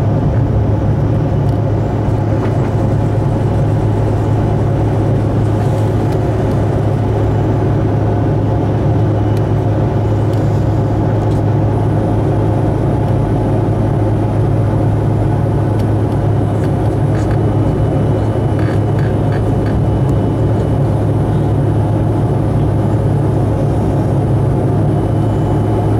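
Airliner cabin during the climb after takeoff: the engines and airflow make a loud, steady drone with a strong low hum.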